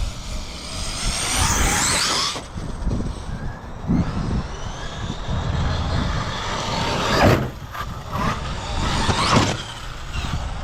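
Electric RC cars running, their brushless motors whining up and down in pitch as they accelerate and pass, over rumbling tyre and ground noise. A sharp knock about seven seconds in is the loudest moment.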